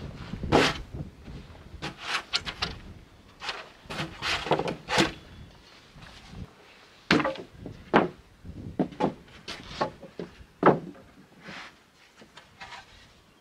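Wooden planks being handled and set down on a pile, giving a string of sharp wooden knocks and clatters that thin out near the end.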